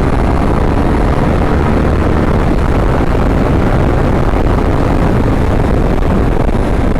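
Riding a KTM RC 390 motorcycle at speed: loud, steady wind rush over the microphone with the single-cylinder engine running beneath it.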